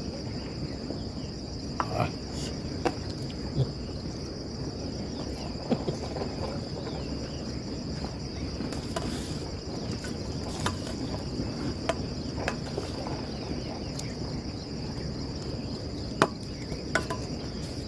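Insects trilling steadily at a single high pitch, over a low background rumble, with scattered small clicks.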